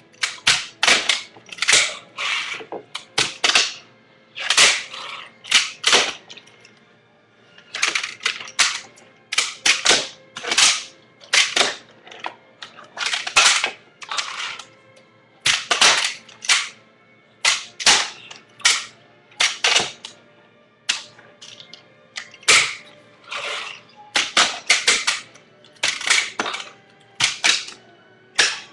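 A fingerboard's small deck and trucks clacking sharply on a wooden box as tricks are popped and landed. The clacks come in quick pairs and clusters, about one or two groups a second.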